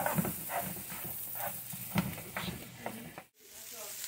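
Diced sweet potatoes, carrots, celery and onions sizzling as they sauté in a nonstick frying pan, with a spatula stirring and scraping them about twice a second. The sound drops out briefly near the end, then the sizzling goes on.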